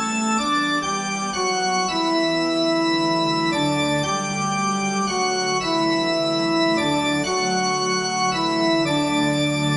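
Organ-like keyboard music: held notes and chords that change every half second to a second.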